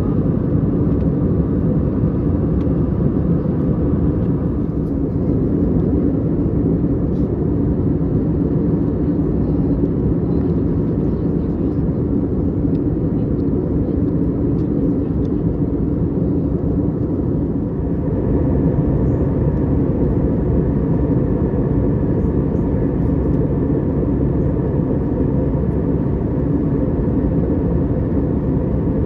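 Steady cabin noise inside an Airbus A321neo at cruise: a constant low rumble of engines and airflow along the fuselage.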